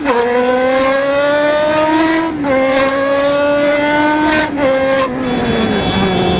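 Motorcycle engine pulling through traffic. Its pitch climbs and drops back three times as the rider changes up through the gears, then the revs fall away near the end as he eases off the throttle.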